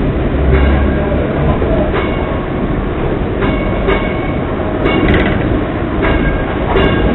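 Hong Kong double-decker electric tram running, heard from on board: a steady low rumble of wheels on the rails, broken by several brief clacks.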